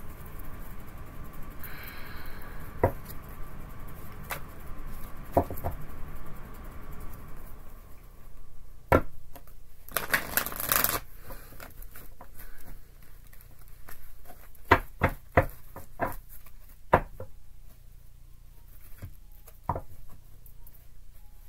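Tarot cards being shuffled and handled by hand: soft rustling and scattered sharp clicks as cards are tapped and set down, with a dense run of card clicks about ten seconds in.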